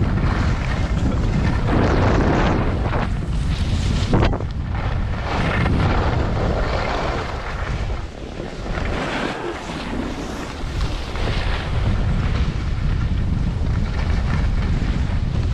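Wind rumbling on a GoPro microphone while skiing downhill, with skis hissing and scraping over packed snow in repeated surges through the turns. A single sharp click about four seconds in.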